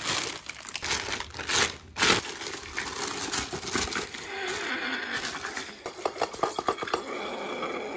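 Plastic bag crinkling as it is handled, and blocks of dry ice knocking into a metal pot as they are tipped out of the bag, with sharp knocks near the start and about 2 s in and a quick run of clicks later on.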